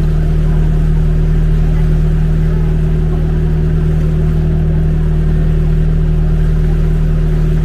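Motorized outrigger boat (bangka) engine running steadily under way, a constant loud drone.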